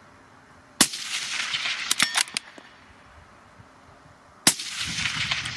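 Two shots from a .260 Remington Tikka T3 rifle, about four seconds apart, each followed by a fading echo. About a second after the first shot comes a quick run of sharp metallic clicks, typical of the bolt being worked.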